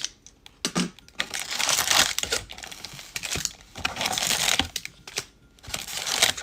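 Foil-wrapped trading card packs from a 2021 Bowman Draft jumbo hobby box crinkling and rustling as they are handled and lifted out of the box, with irregular light clicks and taps.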